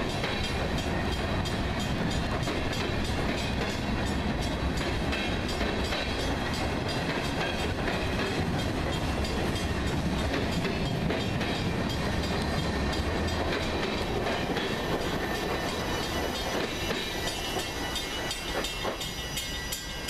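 Freight train of covered hopper cars rolling past, a steady noise of steel wheels on the rails that eases off a little in the last few seconds.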